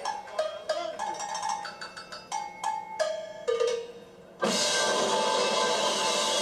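Drum solo on a large rock drum kit: single struck percussion notes at several different pitches, each ringing briefly, in a sparse rhythm. About four and a half seconds in, it breaks suddenly into a loud, steady noisy wash.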